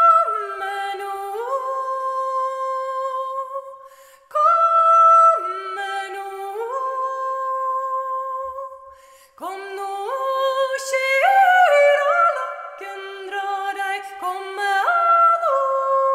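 A woman's voice singing a slow unaccompanied melody in long held notes with upward slides between them, in three phrases with short breaks between.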